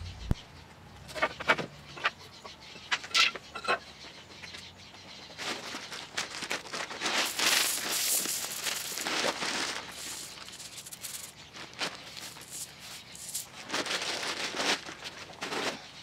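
Sunflower seeds being poured and scattered onto a brick ledge: a rattling patter of seeds landing, in two long stretches, with a few sharp clicks before it.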